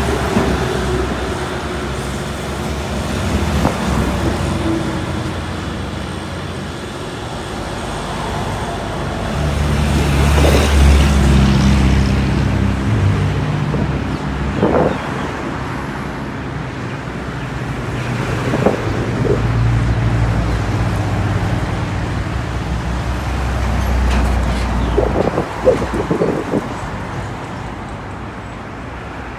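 A truck engine runs steadily, with road traffic passing, and the sound swells twice along the way.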